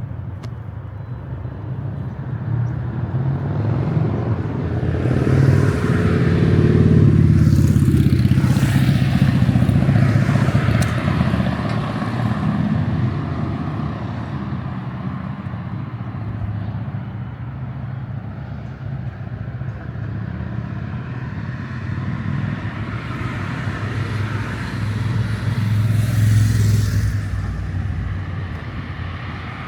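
Motor vehicles driving past in street traffic, engines swelling and fading: a loud pass peaks about seven to eleven seconds in, with an engine note falling in pitch as it goes by, and another passes near the end.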